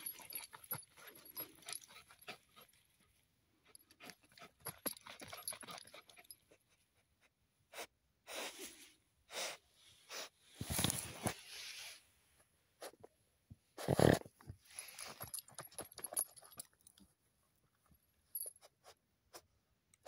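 Young jagdterrier digging at a burrow with its muzzle and teeth pushed into the hole: irregular short bursts of breath and scraping in the soil, with louder bursts about 11 and 14 seconds in.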